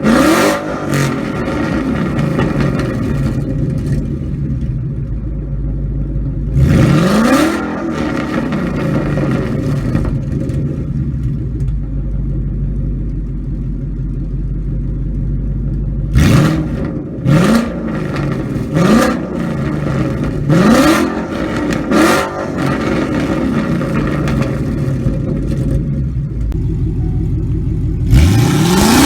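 Ford Mustang's 5.0 Coyote V8 idling through a muffler-delete exhaust and being revved: one blip about seven seconds in, a run of five quick blips in a row around the middle, and a longer rev starting near the end.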